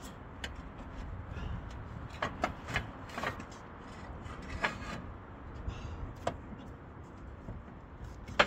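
Scattered knocks, taps and rubbing from hands-on roofing work, with a cluster of knocks a couple of seconds in and a sharper, louder knock near the end, over a low steady rumble.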